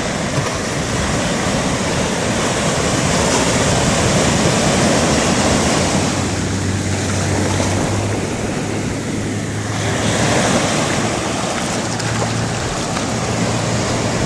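Sea surf: waves breaking and washing up the beach, the rush rising and falling as each wave comes in.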